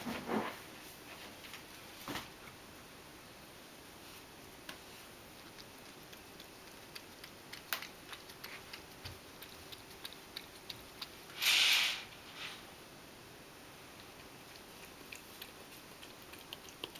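Ragdoll cat lapping milk with its tongue: a run of small, quick, irregular wet clicks, denser in the second half. A brief loud burst of noise falls a little past the middle.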